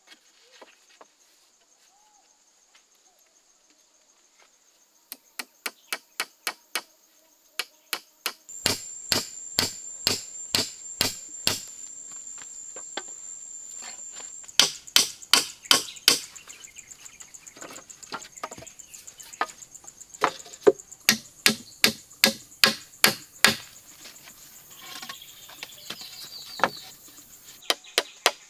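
Hammer driving nails into a wooden pole: sharp blows at about two a second in runs with short pauses, starting about five seconds in. Insects keep up a steady high drone behind the blows.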